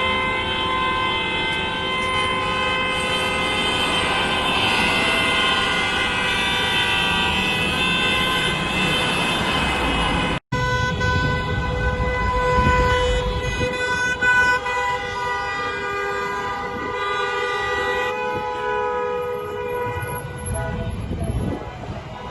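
Many car horns honking at once in a long, steady chorus, with a brief break about ten seconds in before the honking resumes.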